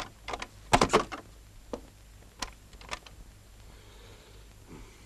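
Footsteps and knocks on a hard floor: a quick loud cluster of knocks about a second in, then a few fainter single steps spread over the next two seconds.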